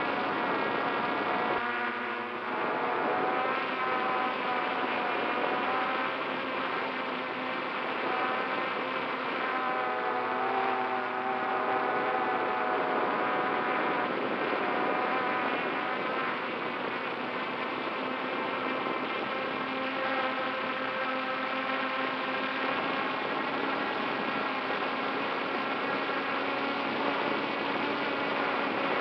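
The electric motors and propellers of an FPV multirotor drone whine steadily, recorded from on board. Their pitch rises and falls as the throttle changes.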